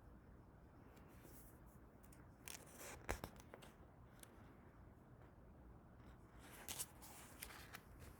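Near silence: room tone, with a few faint short clicks and rustles about three seconds in and again near seven seconds.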